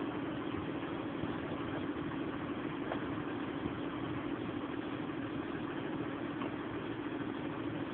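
A boat engine idling steadily, a constant even drone.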